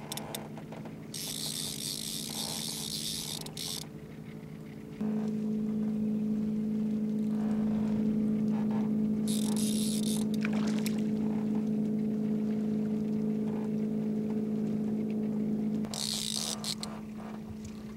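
Boat motor running with a steady low hum, which steps up louder about five seconds in and drops back near the end. Three short bursts of high hiss come over it.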